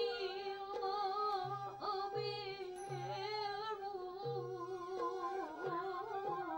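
Devotional music for Manipuri Ras Leela dance: a high voice sings a long, slowly wavering melody with wide vibrato, over short low tones repeating about once a second and a few sharp strikes.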